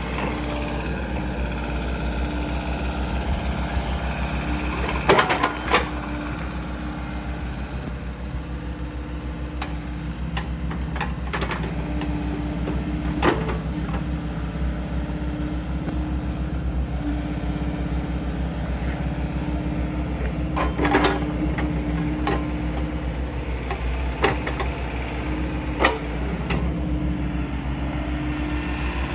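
A JCB 86C-1 tracked midi excavator's diesel engine running steadily while its hydraulics move the boom and arm, with a tone that comes and goes as the hydraulics work. A few sharp knocks stand out, the loudest two about five seconds in.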